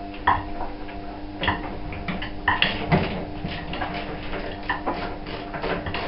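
Irregular metallic clicks and clinks of a screwdriver and screws as the door interlock of a Hotpoint tumble dryer is unfastened, over a faint steady hum.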